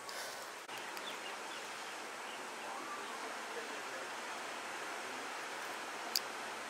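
Steady outdoor wash of wind and distant ocean surf, with a few faint bird chirps and one sharp click near the end.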